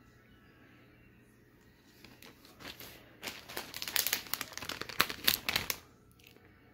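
Clear plastic packaging bag around a solar extension cable crinkling as it is handled, starting about two seconds in, louder in the middle and stopping shortly before the end.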